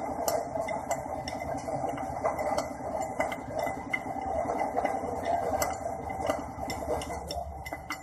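Light metallic clinks and ticks of gearbox parts and tools being handled, over a steady running machine with an even low rhythm that drops away about seven seconds in.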